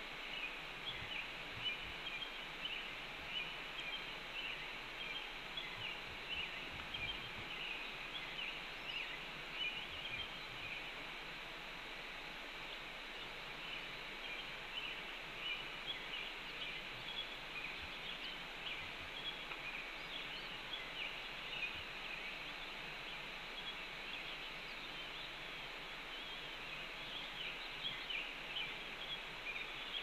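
Red-tailed hawk nestlings peeping during a feeding: a rapid, continuous scatter of faint high chips over a steady background hiss.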